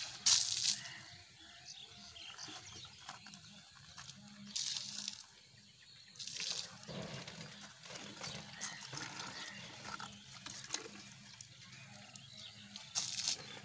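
Cow-dung water flung from a small mug in scoops, splashing onto the yard several times a few seconds apart as it is sprinkled over the ground.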